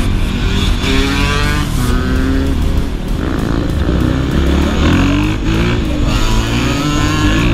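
Suzuki RM-Z450 dirt bike's four-stroke single-cylinder engine under hard acceleration. It revs up in a series of rising sweeps, each dropping back as it shifts up through the gears.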